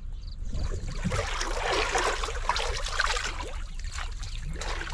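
Muddy pond water sloshing and splashing as a man gropes with his arms under the surface for fish. It builds up about half a second in and eases off near the end.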